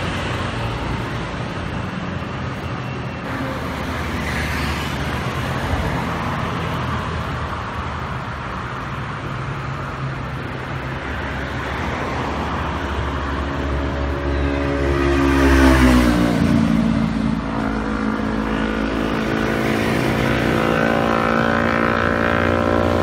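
A clustered honeybee swarm buzzing close to the microphone, a dense steady hum. In the second half a single bee's buzz comes through as a clear pitched drone, loudest and dipping in pitch about fifteen seconds in, then holding steady.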